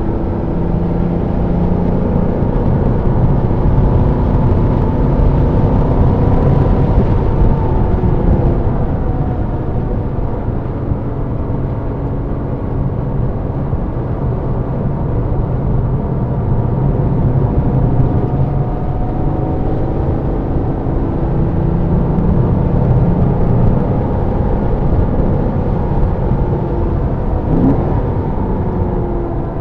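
Porsche Boxster's flat-six engine heard from inside the car at track speed, its note climbing under acceleration and dropping off again several times as it is driven through the corners of a circuit lap, over a constant drone of road and wind noise.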